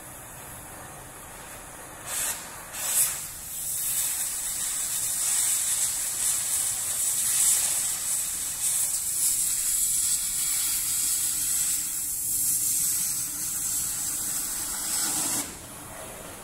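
Oxygen-LPG cutting torch cutting a steel beam. A quiet steady flame hiss, then two short blasts about two and three seconds in, then a loud steady high hiss of the cutting-oxygen jet. The hiss cuts off suddenly near the end, leaving the quieter hiss of the preheat flame.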